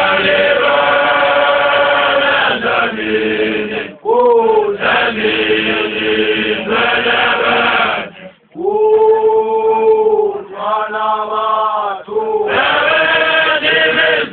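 A group of voices singing a chant-like song in long held phrases, breaking off briefly about four seconds and about eight seconds in.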